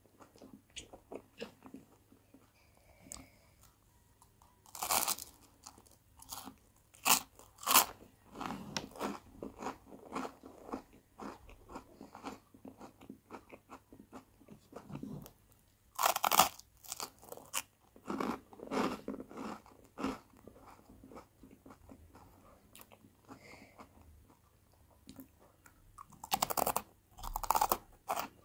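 A person biting and chewing crunchy toasted bread: several sharp, loud crunches spread through, with softer chewing in between.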